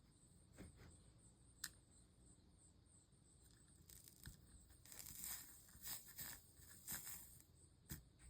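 Faint crackling and sizzling of flux as a soldering iron melts solder along stained-glass seams, busiest in the second half, with a couple of small sharp clicks.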